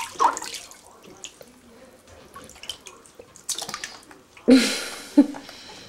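Wet splashing and dripping in a bathtub: scattered small drips and wet clicks, then a louder splash about four and a half seconds in that dies away over half a second.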